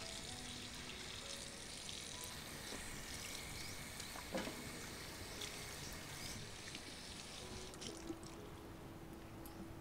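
Tap water running and splashing into a stainless-steel sink while pieces of beef shank are rinsed under it by hand, with a single knock about four seconds in. The running water stops a little past halfway.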